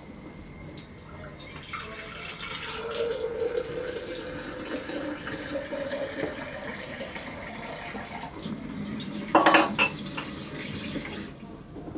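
Kitchen tap running water into a sink, starting about a second and a half in and shutting off near the end. A brief loud clatter comes about nine seconds in.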